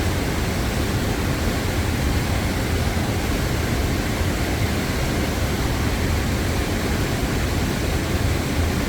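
Steady rushing of river water and a waterfall, an even, unbroken roar of noise.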